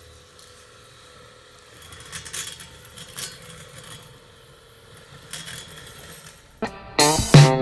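Husqvarna Automower 450X robotic lawnmower running with a quiet steady hum and scattered metallic rattling clicks: the strange rattle of a fault inside the mower. Guitar music comes in loudly about a second before the end.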